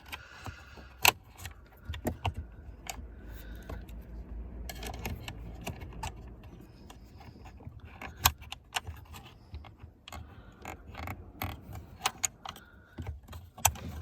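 Irregular small metallic and plastic clicks, taps and rattles as a screw is fiddled into place by hand in a car's dashboard fascia, with several sharp ticks standing out.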